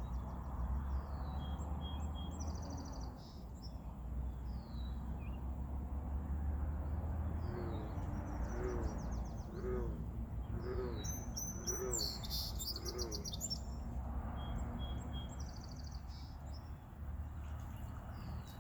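Several birds chirping and trilling in short high phrases. Around the middle a lower call repeats about five times, roughly once a second.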